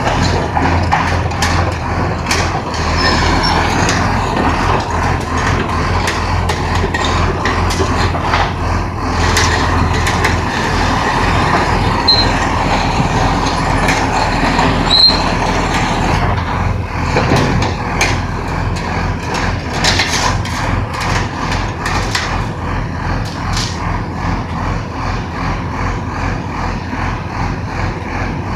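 Chang Shin ROCKIT 250RD drilling rig running: a steady, loud engine drone with mechanical noise and intermittent sharp knocks, bunched in the middle stretch.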